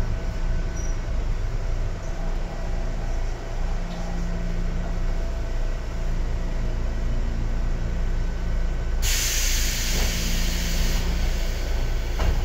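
Sangi Railway 101 series electric train (car KuMoHa 106) running, with a steady hum of motor and running gear. About nine seconds in, a loud hiss starts suddenly and lasts about two seconds before easing to a fainter hiss.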